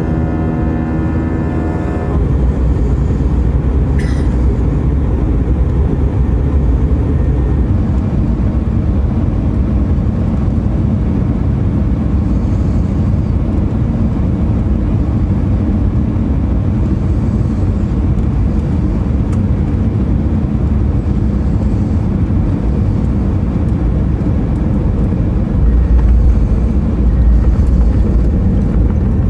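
Airbus A320 cabin noise on final approach: a steady rumble of engines and rushing air. Near the end a louder, deeper rumble sets in as the airliner comes down onto the runway.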